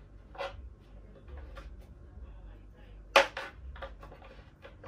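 A few sharp knocks and clicks from a plywood panel and its metal hinge being handled and set on a tiled floor. The loudest knock comes about three seconds in, with a couple of smaller ones just after it.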